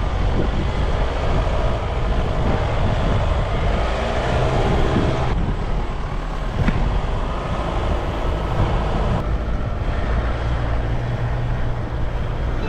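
Four-wheel-drive vehicle driving off-road: a steady engine drone and tyre noise, with a few short knocks along the way.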